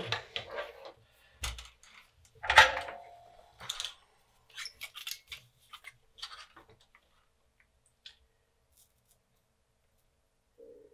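Hand tools being handled on a workbench: a few light clicks and knocks, one sharper knock with a brief ring about two and a half seconds in, and scattered small ticks until about seven seconds in, then near quiet.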